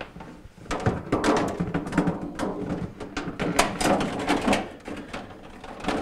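A plastic refrigerator evaporator cover (freezer back panel) being worked into place against the freezer liner: a busy run of scraping, clicking and knocking of plastic on plastic, starting about a second in.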